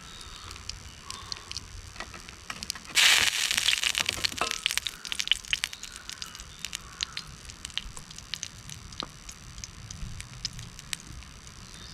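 Wood campfire crackling with sharp scattered pops. About three seconds in a sudden louder rush of crackling noise sets in and dies back over a couple of seconds.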